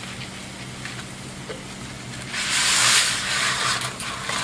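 Bacon, onion and white wine sizzling in a frying pan beside a pot of boiling water, over a steady low hum. A louder hiss rises about two seconds in and dies down a second later as dry spaghetti goes into the boiling water.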